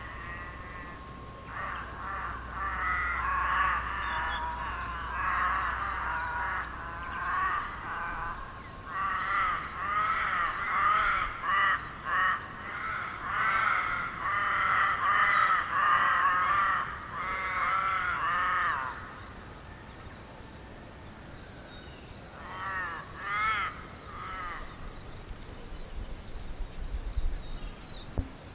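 Wild birds calling loudly in a long run of rapid, repeated rising-and-falling notes that lasts about seventeen seconds, then a shorter burst of the same calls a few seconds later.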